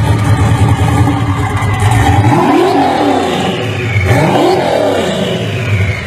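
Hennessey Venom GT's twin-turbo V8 heard from behind, running at a steady low idle, then revved three times from about two seconds in, the pitch climbing and falling each time.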